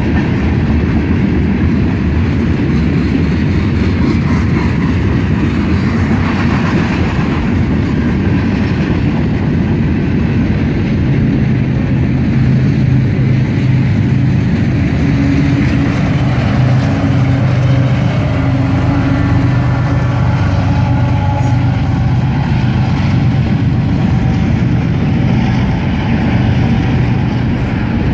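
Freight cars of a long mixed freight train rolling steadily past a grade crossing: a continuous heavy rumble of wheels on the rails. In the second half a low hum and faint drawn-out higher tones join in.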